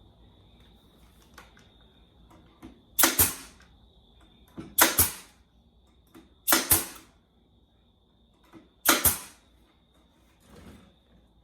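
Pneumatic brad nailer firing four times, roughly two seconds apart, each a sharp snap with a short burst of air, driving brads into wood.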